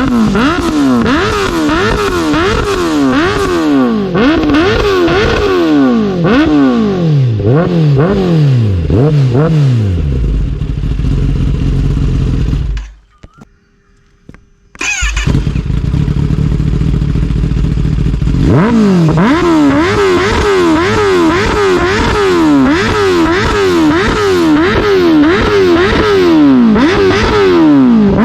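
Kawasaki ZX-10R inline-four through an SC Project SC1-R long-canister slip-on with the dB killer removed, revved in quick repeated blips. It settles to idle about ten seconds in, the sound cuts out briefly, and then the blipping starts again. The exhaust note is very loud.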